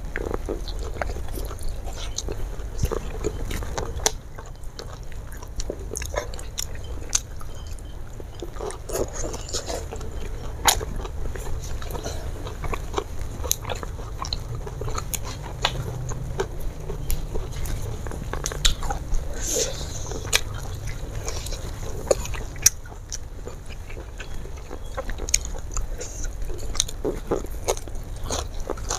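Close-miked mukbang eating: biting and chewing fried fish, rice and raw leafy greens eaten by hand, with many short wet mouth clicks and smacks and a few louder crunches, over a steady low hum.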